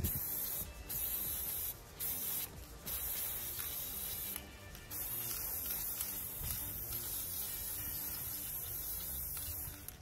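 Spray paint hissing as black paint is sprayed onto a table fan's wire guards. It comes in several short bursts with brief pauses, then one longer continuous spray from about halfway, over quiet background music.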